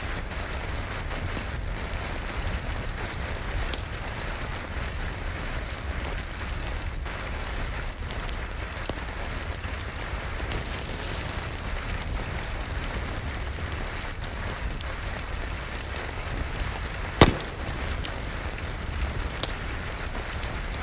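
Steady rain with a crackling wood fire: an even hiss of rain over a low rumble, broken by a few sharp pops from the fire, the loudest about three quarters of the way through.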